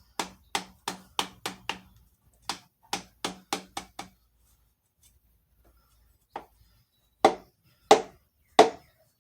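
A piston being tapped down through a strap-type ring compressor into a Jeep 4.0 cylinder bore: about a dozen quick, sharp taps in the first four seconds, one more a couple of seconds later, then three harder knocks near the end.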